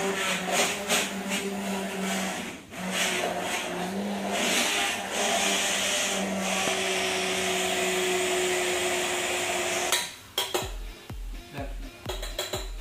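Hand-held immersion blender running in a stainless steel jug, puréeing green pea broth: a steady motor hum with the churn of liquid, dipping briefly about two and a half seconds in and stopping about ten seconds in. Background music with a steady beat follows to the end.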